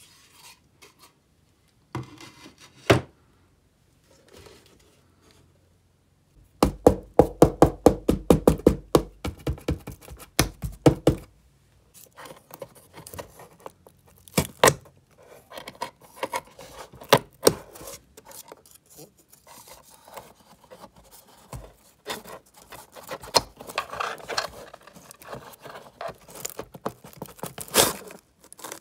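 Close-up scratching, scraping and clicking of a small hand tool picking at old newspaper lining against the wooden side of a trunk. A fast run of clicks comes about a quarter of the way in, then irregular scraping and clicks.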